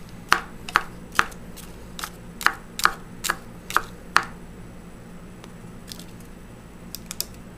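A utensil striking and scraping against a dish while mixing food: about ten sharp taps in the first four seconds, then a few faint clicks near the end.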